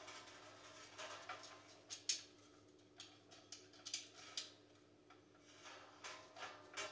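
Faint scattered clicks and clinks of metal hardware and tools being handled during assembly, the sharpest about two seconds in, over a steady low hum.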